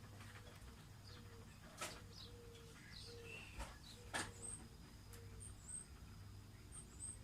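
Faint bird calls: a series of short, low cooing notes and a few quick high chirps, with two sharp clicks about two and four seconds in.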